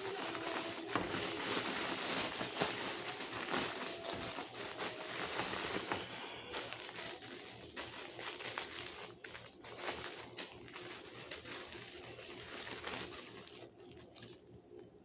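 Thin plastic breather bag crinkling and rustling as a potted plant is handled and unwrapped, with many small crackles. It dies down near the end.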